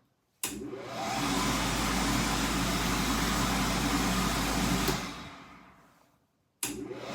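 A 2000 W wall-mounted infrared-sensor hand dryer (modunful) switches on suddenly and whirs up to a steady blowing rush. About five seconds in it winds down and stops, then kicks on again near the end. The sensor cuts the blower whenever the hands leave the spot right under the outlet.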